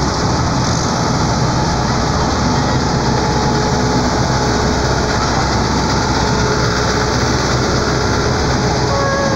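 Diesel engines of several farm tractors running steadily as they drive slowly past in a line, a large Case IH tractor close by. A short falling tone is heard near the end.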